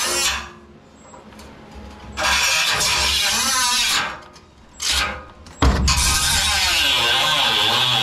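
Milwaukee Fuel cordless cut-off tool slicing through the sheet-metal base of an old furnace in bursts: a cut about two seconds in, a brief blip near the middle, and a longer cut through the last couple of seconds. Its whine dips and rises as the wheel bites into the metal.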